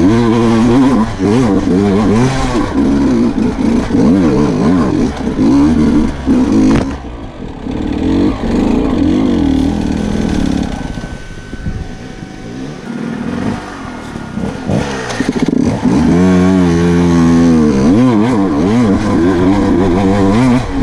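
Sherco 125 enduro motorcycle engine under a rider, revving up and down in quick changes over rough trail. Between about 7 and 15 seconds in it eases off to lower revs, then picks up hard again.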